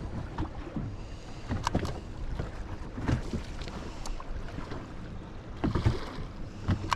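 Small waves slapping irregularly against a fishing boat's hull, over a steady rush of wind on the microphone.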